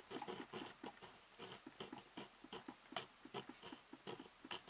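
Fine-toothed Tamiya hand saw cutting soft vinyl, a faint run of quick, even rasping back-and-forth strokes, about five a second.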